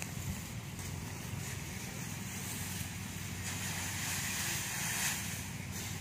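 An engine running steadily with an even low hum under a broad hiss, and the hiss swells for a second or so about halfway through.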